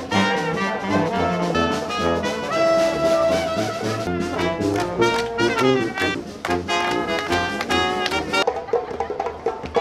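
Brass band playing, with trombone and sousaphone to the fore. The brass stops near the end.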